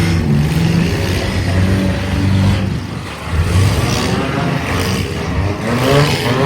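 Compact-car engines running and revving in a demolition derby, their pitch rising and falling.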